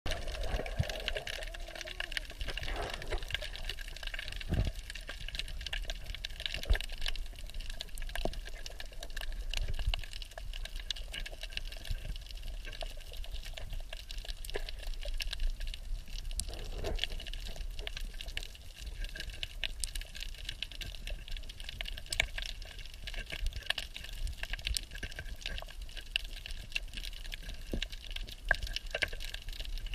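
Underwater ambience picked up by a camera in its waterproof housing: a steady watery hiss and low rumble, scattered with many sharp small clicks and crackles.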